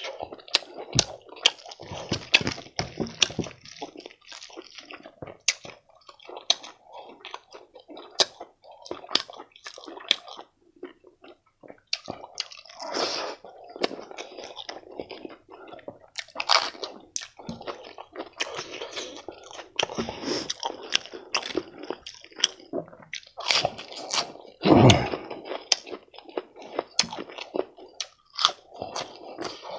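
Close-miked chewing with frequent wet mouth clicks and smacks, in irregular bursts. One louder, deeper thump comes about 25 seconds in.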